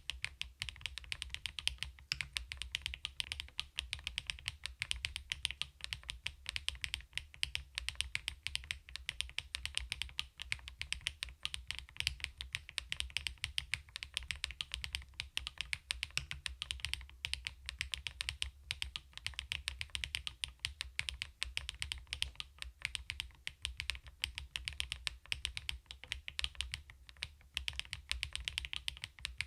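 Continuous fast typing on a CoolKiller VIVID67 full-aluminium mechanical keyboard, a steady stream of key clicks with no pauses.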